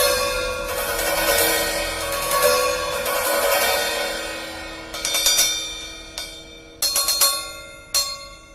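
Nebulae 14-inch crash and 12-inch splash cymbals struck together in a cymbal sound check. Quick repeated hits keep up a bright, ringing wash that fades out over the first half. About five seconds in come sharper separate strikes, some in quick twos and threes, each ringing out.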